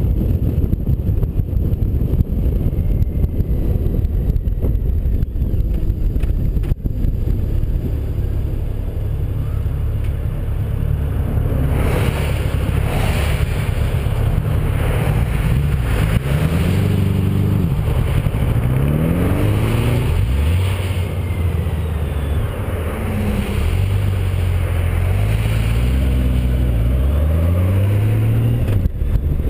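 Ride sound from a Honda Gold Wing motorcycle at highway speed: steady wind rush over the microphone with the engine running underneath. From about halfway, the engine note rises and falls several times as the bike speeds up and shifts.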